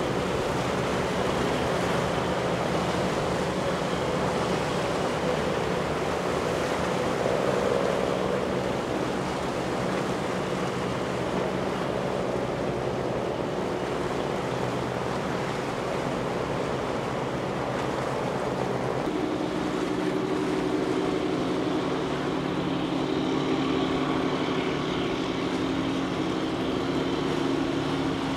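Engines of small boats running on the water, a steady drone whose pitch shifts now and then, with another boat's engine coming in about two-thirds of the way through, over the wash of waves.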